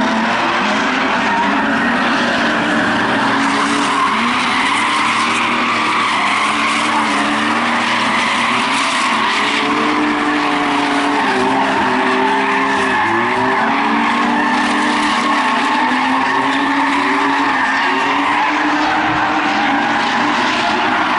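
Several drift cars' engines revving up and down over and over as they slide sideways around the track, with a constant hiss of tyres skidding and squealing.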